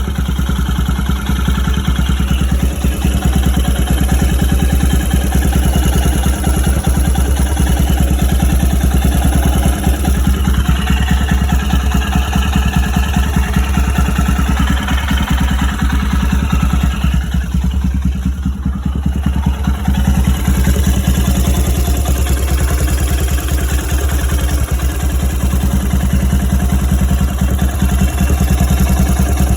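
Old Royal Enfield Himalayan's single-cylinder engine running steadily with a clattering mechanical noise that the owner finds bad and his mechanic calls normal for the old Himalayan.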